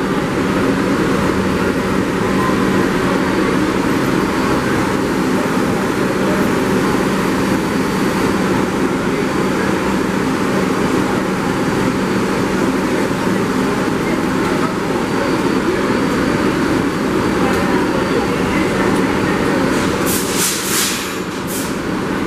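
New York City subway train standing at the platform with its doors open: a steady, loud drone from the car's equipment with a constant low hum. Near the end come a few short bursts of high hissing.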